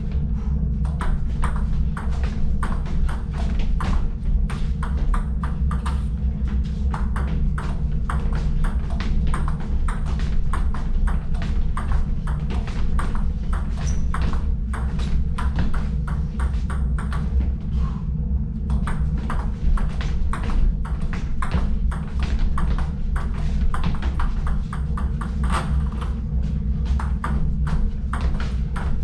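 Table tennis rally: the ball clicking off paddles and bouncing on the table in a quick, even rhythm, with a brief break about eighteen seconds in. A steady low hum runs underneath.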